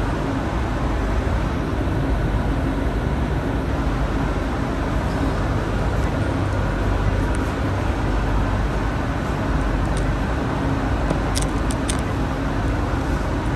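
ART200 metro train running between stations, heard inside the car: a steady, loud rumble of wheels on rail with a faint motor hum, and a few short clicks near the end.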